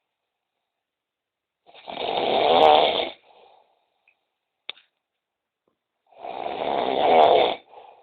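Snoring: two long snores about four and a half seconds apart, each growing louder before it cuts off. A short click falls between them.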